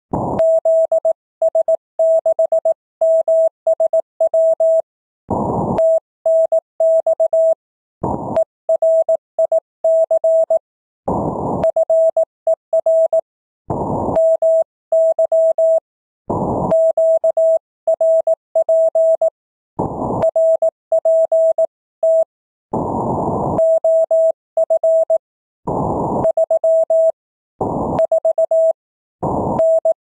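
Morse code (CW) received over an amateur radio: a single mid-pitched tone keyed on and off in dots and dashes, with short rushes of band noise hiss in the pauses between letter groups.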